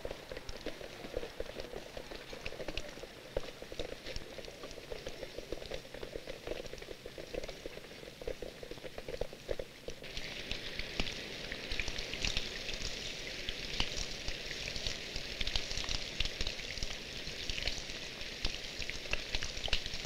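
Rain pattering on a surface, a steady hiss dotted with many small drop ticks. About halfway through it turns louder and brighter, the sound of rain falling on water.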